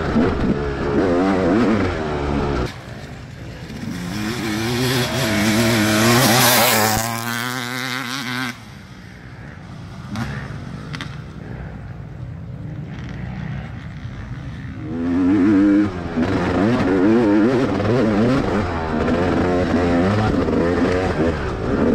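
Dirt bike engine under a racing rider, revving up and down with the throttle. It falls off sharply about three seconds in, climbs again, then drops away about eight seconds in. It runs low for several seconds with scattered knocks before coming back loud and revving hard from about fifteen seconds.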